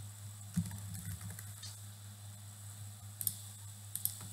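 A few sharp computer mouse clicks and keystrokes while a web form is filled in, over a steady low hum.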